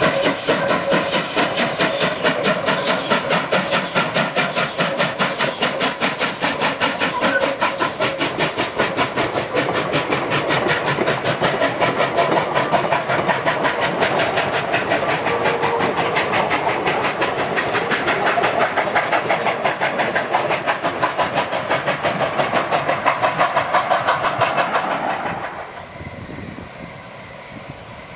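4-8-2 steam locomotive hauling a passenger train past close by: a fast, even chuffing beat with the coaches' wheels running on the rails. Near the end the sound drops suddenly to a quieter, more distant train.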